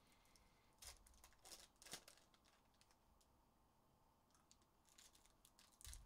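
Faint crinkling and tearing of foil trading-card pack wrappers as packs are opened by hand: a few short crackles over near silence.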